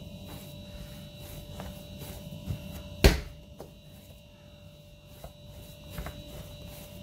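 Msemen dough being kneaded by hand on a countertop: soft pressing and knocking, with one loud thump about three seconds in and a few lighter knocks after. A steady electrical hum runs underneath.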